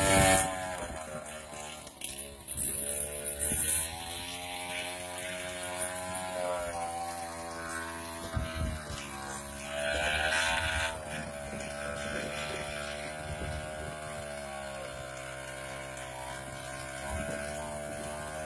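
A small engine running, its pitch drifting slowly up and down, with short louder hissy stretches about two seconds in and again around ten seconds in.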